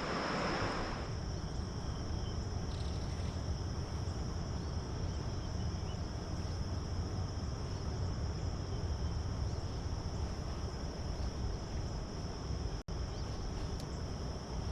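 Insects singing in one steady high pitch, with a constant low rush of background noise beneath; both cut out for an instant about thirteen seconds in.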